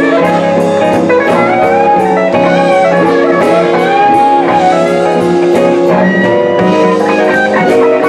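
Live electric blues band playing: electric guitar lead with bent, gliding notes over horns, bass and drums, with a steady cymbal beat about twice a second.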